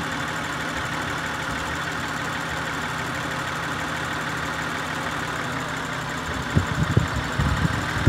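2003 Acura TL Type S 3.2-litre V6 idling steadily at about 750 rpm, with one dead cylinder causing its random multiple-misfire codes. Near the end come a few irregular low thumps.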